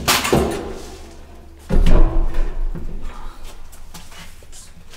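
Attic ladder hatch with its folded metal ladder being pushed shut from below with the hook rod: a couple of knocks as it swings up, then a heavy thud about two seconds in as the hatch closes into its frame, with lighter knocks after.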